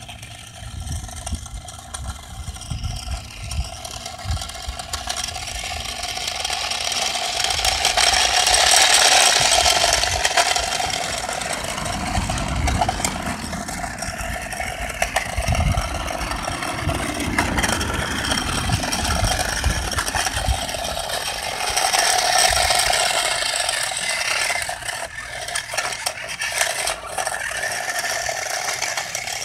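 Toy-grade Tyco RC Lightning McQueen car running on concrete: its small electric motor and plastic gears whirring while the hard plastic wheels rattle and scrape over the rough surface, louder in two stretches.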